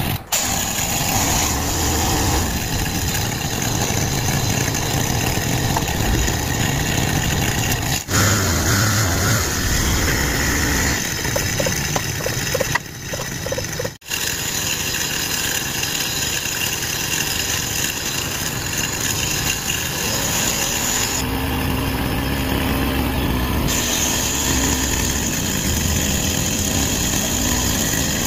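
Steady hum and whine of the small electric motors driving a homemade radio-controlled crane truck and an RC excavator. It breaks off briefly a few times.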